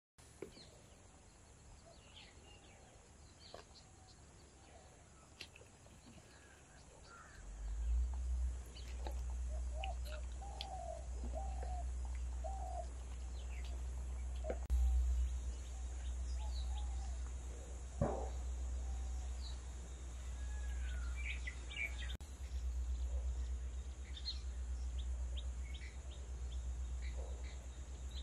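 Small birds chirping and calling in short scattered notes, over a steady low rumble that comes in about a quarter of the way through. A single sharp click about two thirds of the way in.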